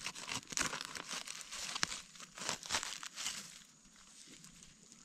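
Dry leaf litter crackling and rustling as a gloved hand digs through it to pick mushrooms out of the forest floor, settling down after about three and a half seconds.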